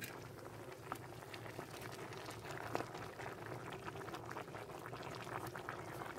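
Meat boiling in water in an open clay pot: steady bubbling, with a few light knocks as a wooden spoon stirs it.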